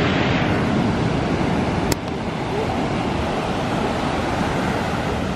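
Sea surf breaking and washing up a sandy beach: a steady rushing of waves, with a single sharp click about two seconds in.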